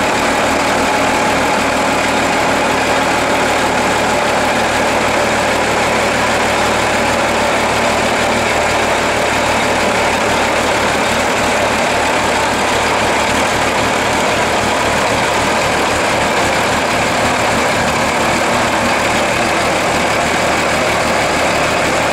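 Four-wheel Rolligon's engine running steadily as the vehicle moves slowly.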